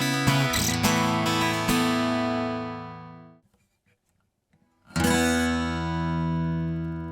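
Applause Elite AE44 II roundback acoustic-electric guitar strummed, the last chord left to ring and die away into silence about three and a half seconds in. A fresh chord is struck about five seconds in and left ringing.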